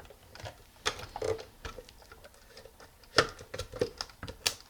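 Light plastic clicks and knocks, irregular and quiet, of toy pieces being handled, with a denser run of them near the end, as a toy tractor is worked to pick up its load.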